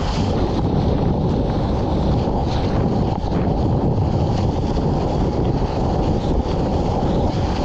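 Sea water rushing and splashing around a waterproof action camera at the surface of the surf, with wind buffeting its microphone: a steady, deep rushing noise.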